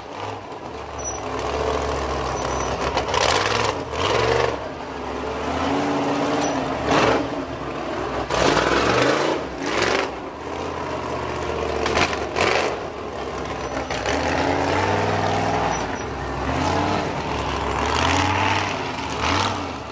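Ultra4 rock-racing car's engine revving in repeated short bursts and dropping back between them as the car crawls down over large boulders.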